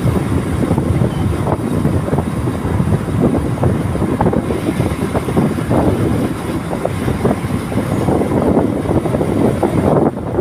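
Wind buffeting the microphone of a moving motorbike: a loud, steady, gusty rush with the riding noise underneath.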